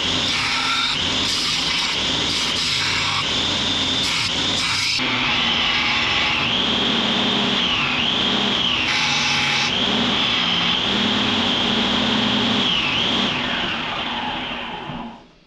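Belt grinder running as a steel blank cut from a saw blade is ground against the belt: a steady grinding noise with a high tone that dips in pitch several times. It fades and stops near the end.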